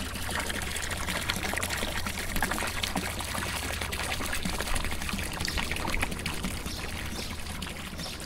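Running water pouring and splashing steadily, a dense crackling patter of water falling onto water.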